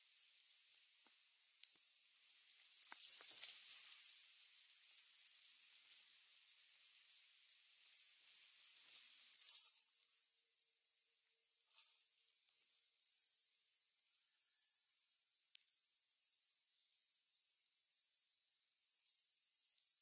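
Red-whiskered bulbul nestlings begging during feeding: thin, high, hissy squeaks, loudest about three to four seconds in and again just before halfway, then dying away. A faint chirp repeats about twice a second throughout.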